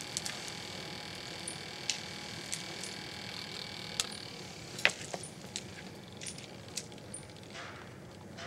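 Faint high whine of the small electric motor driving a rotating rain-clearing disk on a motorcycle helmet visor, fading out about five seconds in, with scattered sharp ticks.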